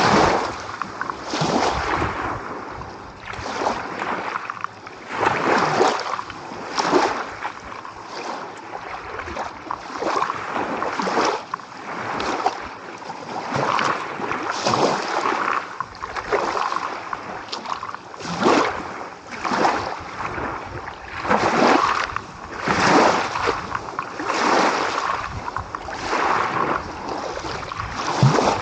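Small ocean waves washing and splashing on the shore, in repeated surges every second or two with no pause between them.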